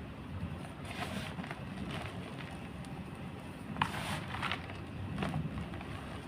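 Big pieces of gym chalk crushed, giving a few separate crunchy crackles with a sharp snap about four seconds in, over a low steady rumble.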